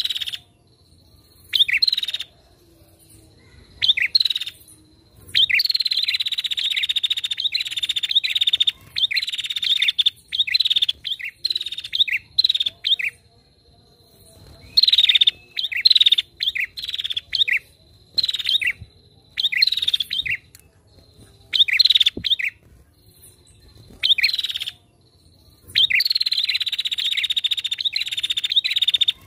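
Female prenjak (prinia) calling in repeated bouts of rapid, high chattering, each bout lasting a second or two with short pauses between.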